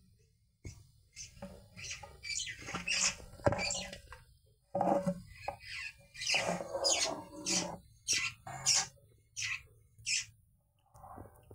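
An irregular run of short, sharp sounds, several a second and coming in clusters: an African catfish being gripped with metal tongs in a shallow basin of water, its struggling and the tongs working against the basin.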